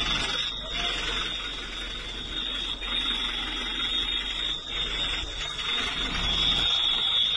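A steady hiss under a continuous high-pitched alarm tone that grows stronger near the end.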